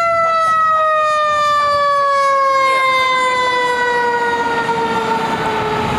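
Fire engine siren sounding one long, slowly falling tone as it winds down, with vehicle rumble growing in the second half as the fire engine passes and turns.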